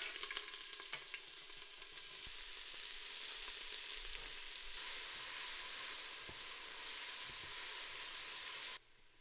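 Chopped yellow onion sizzling in hot oil in a stainless steel stockpot as it is tipped in and then stirred. A steady hiss that cuts off sharply near the end.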